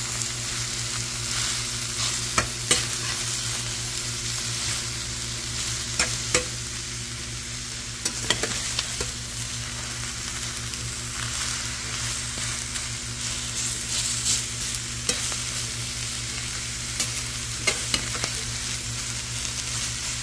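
Chopped cabbage, broccoli, carrots and onion sizzling in a hot metal pan as they are stir-fried with a slotted metal spatula, which scrapes and clicks against the pan now and then.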